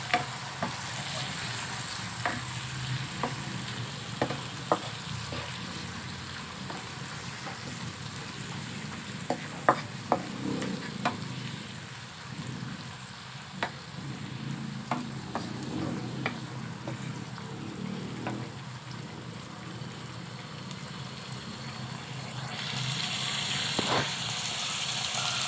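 Chopped onions and cumin seeds sizzling in hot oil as they fry toward brown, stirred with a wooden spatula that scrapes and knocks against the non-stick pan now and then. The sizzle grows louder near the end.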